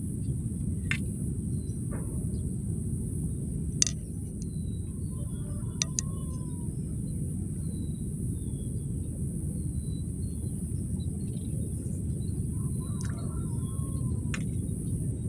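Steady low outdoor rumble with a thin, steady high whine above it, birds chirping now and then, and a few sharp clicks from handling the fishing rod and reel.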